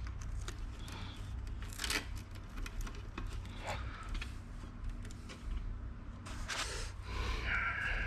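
Scattered clicks, scrapes and rustling of computer hardware being handled during assembly, over a steady low hum.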